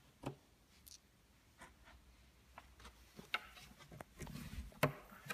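Faint scattered clicks and taps as hands work metal nuts into the holes of a white wardrobe panel and handle the board, with a short low rumble and then a sharper knock near the end.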